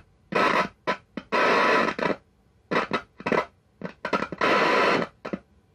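Zenith Royal 1000 Transoceanic transistor radio hissing with loud static that cuts in and out in irregular bursts, with silent gaps between them. The volume control has no effect on the static, which the owner puts down to probable bad capacitors.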